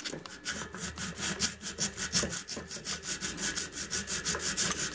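Sandpaper rubbed back and forth over the joint seam of a bicycle rim in quick, even strokes, smoothing the seam so the rim-brake pads wear less.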